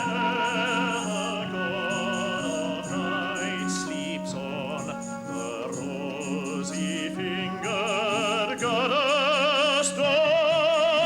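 Music: a high voice sings long, wavering notes with strong vibrato over a steady low drone, with no words. It grows louder and fuller from about eight seconds in.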